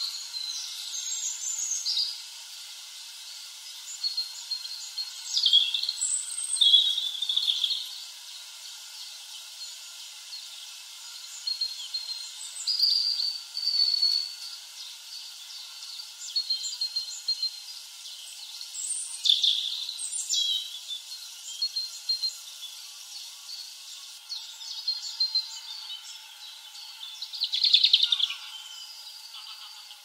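Small songbirds calling and singing: high, thin chirps and short trills scattered throughout, with louder bursts about five to seven seconds in, around twenty seconds, and near the end.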